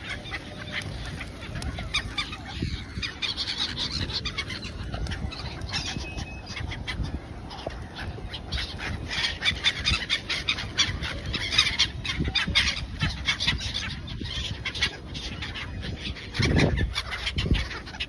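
A large flock of gulls calling without pause, many short cries overlapping, over a low steady rumble. A louder, deeper sound comes near the end.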